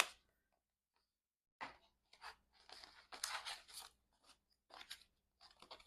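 Crisp rustling and crinkling of paper album inclusions being handled, in short irregular scrapes that start after about a second and a half of quiet, with a single click at the very start.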